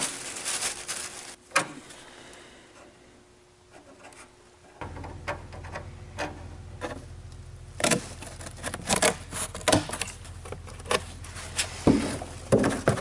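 Handling noise as a tape measure and a cardboard template are held, tapped and rubbed against the car's bare steel A-pillar and plastic sheeting: scattered clicks and rustles, thickening into many quick clicks and rubs near the end. A low steady hum comes on about five seconds in.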